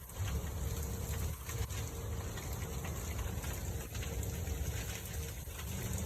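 Wind blowing and buffeting the microphone in a steady low rumble with a hiss above it; a faint steady hum comes and goes underneath.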